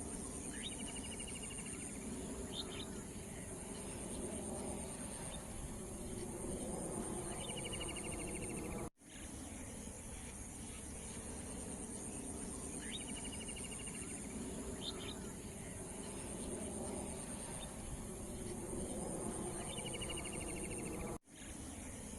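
Evening outdoor ambience: insects trill steadily at a high pitch, a bird gives a few short chirping trills now and then, and a low background rumble sits underneath. The sound cuts out for a moment twice, where the looped track repeats.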